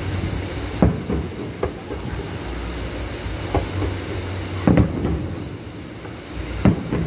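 Distant aerial firework shells bursting with deep booms at uneven intervals, about six or seven in all. The loudest are a quick double bang about halfway through and another bang near the end, all over a steady low rumble.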